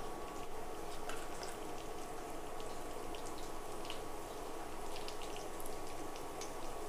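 Hot oil sizzling with mustard seeds, cumin and chana dal frying in it for a tempering: a steady hiss with scattered small pops and crackles, over a faint steady high whine.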